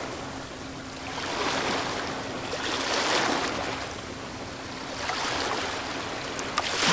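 Rushing ocean water noise that swells and fades about every two seconds, with a faint steady low hum underneath.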